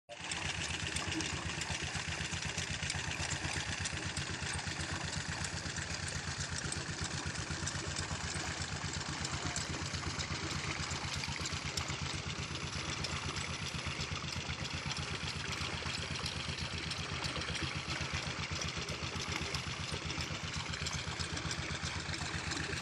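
An engine running steadily at idle-like speed, with an even low chugging pulse throughout.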